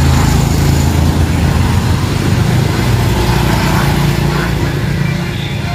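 Two small underbone motorbikes passing close by: a steady low engine drone, loudest at the start and fading slowly as they ride away.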